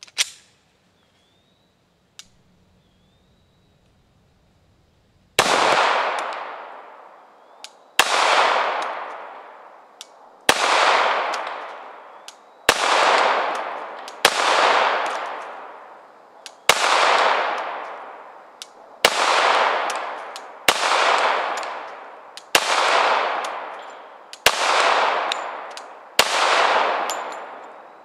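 Glock 21 Gen4 .45 ACP pistol firing eleven single shots at a slow, deliberate pace, about one every two seconds, each shot ringing out in a long echo. It starts about five seconds in, after a couple of faint clicks.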